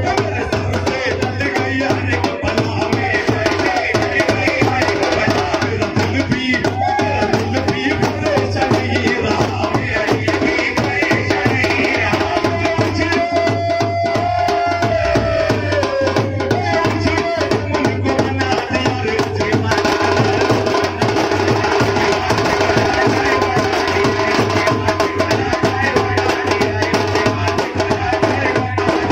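A drum ensemble of hand-held frame drums, a neck-slung drum and a large bass drum plays a fast, steady rhythm, with a voice chanting through the microphone around the middle.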